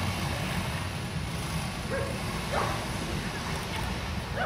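A dog yelps twice in short succession, about two seconds in, over a steady low rumble.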